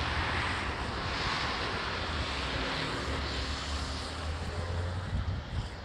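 Steady rumbling hiss of wind on the microphone, easing a little near the end.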